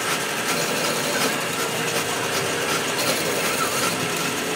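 Metal lathe running steadily, with a boring bar cutting inside the bore of a spinning steel workpiece: a continuous machining noise with a faint steady whine over the gear noise.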